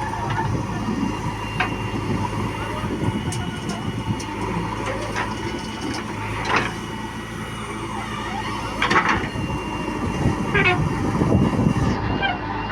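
Heavy diesel machinery, a backhoe loader at work, running steadily, with several sharp metallic clanks and knocks scattered through.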